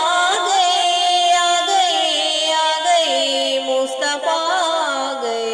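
Naat singing: a voice drawing out a long, wavering melody without clear words between sung lines.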